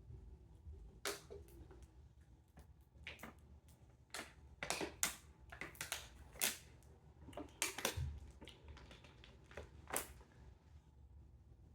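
Irregular sharp clicks and taps of objects being handled, thickest in the middle few seconds.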